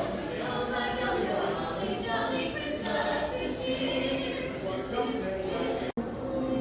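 A group of carolers singing together, with crowd chatter beneath. The sound drops out for an instant near the end.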